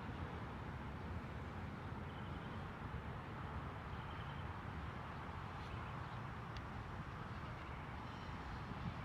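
Steady vehicle and road noise: a continuous low rumble with a hiss over it, with no single event standing out.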